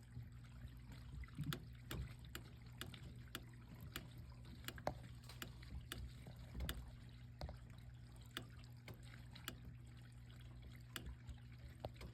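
Faint, irregular ticking and clicking, about two or three clicks a second, that sounds like water dripping inside a ceiling. The noise comes from the drain pipes in the ceiling, mostly from a 3-inch stack, and not from a leak.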